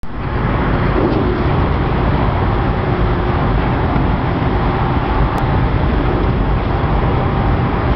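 Towboat's diesel engines running steadily under way, a loud, unbroken low drone.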